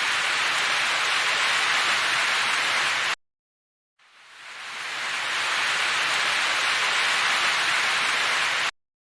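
Potato fries sizzling as they fry in hot oil, a steady dense hiss. It cuts off abruptly about three seconds in, returns after a second of silence, building up, and cuts off again near the end.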